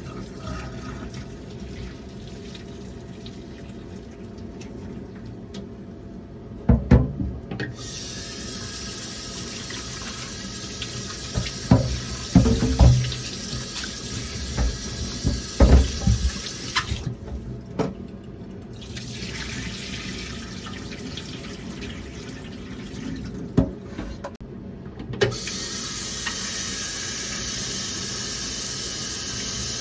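Kitchen tap running into a sink, turned on and off three times, with knocks and clatter of things being handled and washed under the water.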